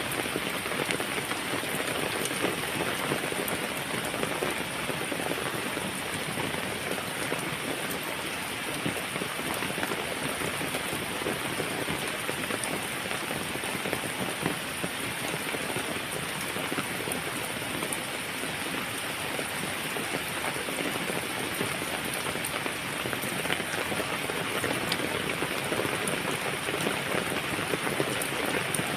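Steady heavy rain falling, dense patter of raindrops hitting a surface.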